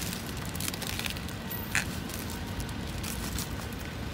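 Plastic wrapping crinkling and rustling as hands pull it off a cardboard shipping box, with one sharp click a little under two seconds in, over a low steady background rumble.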